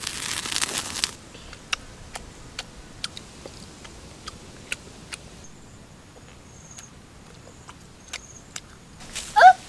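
Sparse sharp clicks of a boy chewing and smacking his lips while eating, after about a second of hiss from chicken hearts sizzling on a hot rock. Near the end comes one short, loud cry that rises in pitch.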